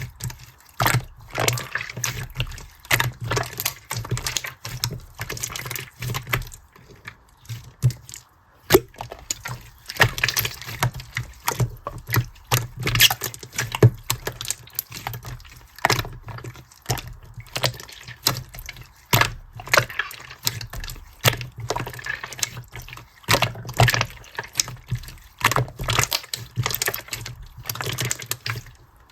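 Slime being squeezed and pressed by hand, making irregular wet squelches, clicks and crackles.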